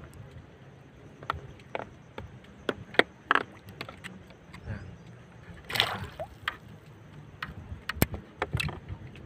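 Scattered light clicks and knocks from handling fishing tackle in a small boat, over a faint steady wash of water. The louder knocks come about three, six and eight seconds in.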